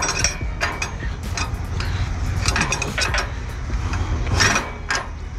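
Car hauler wheel-strap ratchet and tie-down strap being worked by hand: scattered metal clicks and clinks as the strap is fed through the slotted steel deck onto the toothed ratchet spool, over a steady low rumble.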